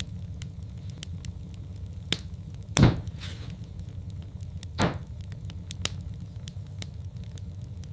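Wood fire in a fireplace crackling over a steady low rumble, with frequent small crackles and two louder pops, about three and five seconds in.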